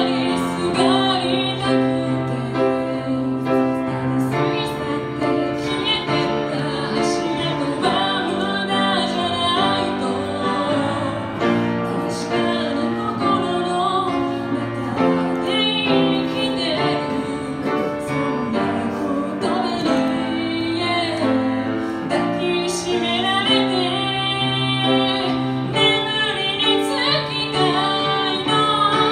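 A woman singing while accompanying herself on a grand piano.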